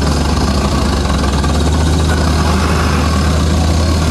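Truck engine running steadily at idle, low-pitched and even.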